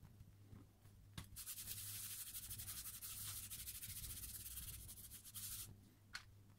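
A round baren rubbed in rapid back-and-forth strokes over paper laid on an inked linocut block, burnishing the print; the scratchy rubbing starts about a second in and stops near the end, with a light tap before and after it. The audio is sped up to double speed.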